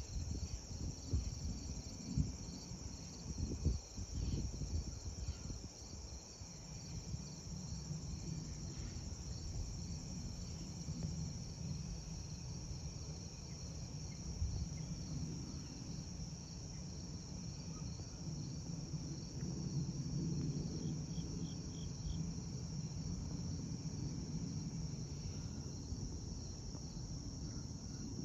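Crickets chirring in a steady high drone, under the low distant rumble of a Boeing KC-46A Pegasus tanker's jet engines on landing approach, which comes in about seven seconds in and swells past the middle. Wind buffets the microphone in the first few seconds.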